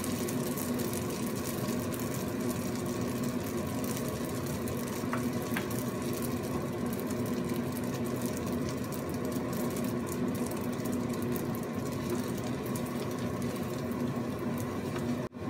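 Spaghetti and spinach sizzling in a hot wok while being tossed with metal tongs, a dense crackle over a steady low hum. The sound cuts out briefly just before the end.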